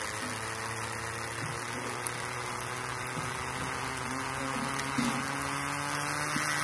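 Small electric motor of a homemade model tractor running steadily, a humming whine whose pitch creeps slightly upward, with a few light clicks.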